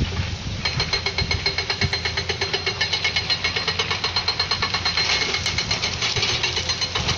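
Heavy construction machine running with a low engine rumble. Less than a second in, a rapid, even pulsing of about eight beats a second starts, with a high steady tone in it.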